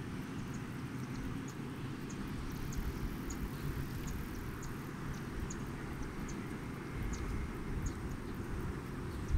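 Open-air lakeside ambience: a steady low rumble and hiss, with short high chirps about once or twice a second.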